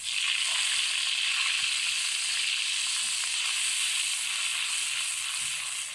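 Blended onion paste hitting hot oil and butter in a pan: a loud sizzle that starts suddenly and holds steady, easing slightly near the end.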